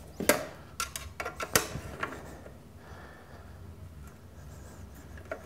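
Light metal clicks and knocks as an aluminium bench-grinder tool rest is set in position and its cap screws are worked with a T-handle hex key. The clicks come mostly in the first two seconds, with one more near the end.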